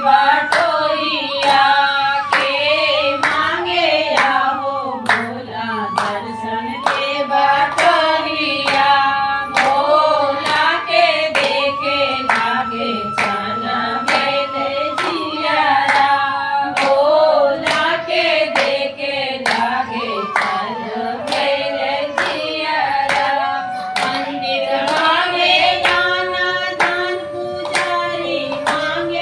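A group of women singing a Bhojpuri devotional bhajan to Shiva together, keeping time with steady hand-clapping.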